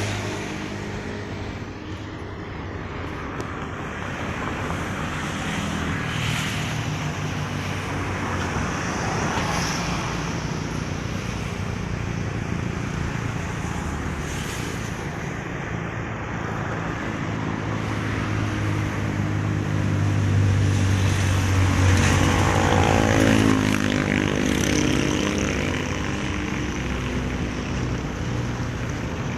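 Steady engine noise of passing motor vehicles, swelling as one passes close about two-thirds of the way through, its pitch falling as it goes by.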